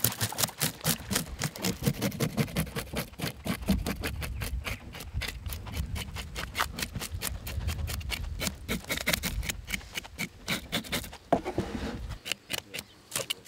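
A knife scraping the scales off a croaker on a plastic cutting board: quick rasping strokes, several a second, over a low rumble that stops near the end.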